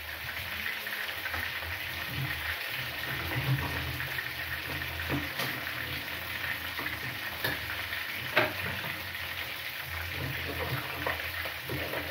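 Meat sizzling in a frying pan, with a few sharp taps of a knife on a chopping board.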